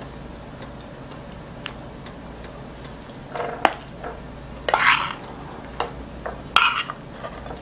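Metal spoon clicking and scraping against a frying pan as shrimp and sauce are spooned out onto a plate, with a few louder scrapes in the second half.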